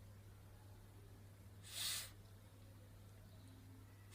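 A woman voicing the phonics sound of the letter F, a short breathy "fff" hiss, about two seconds in and again at the very end, over a low steady hum.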